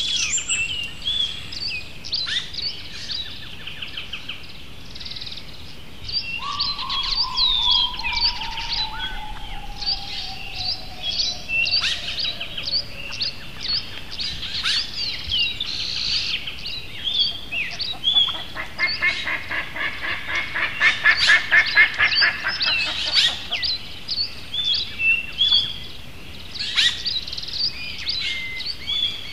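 Several birds singing, with many short high chirps and warbles throughout. About a quarter of the way in, a long whistled note falls slowly in pitch for some seven seconds; past the middle, a fast rattling trill, the loudest sound, runs for about five seconds.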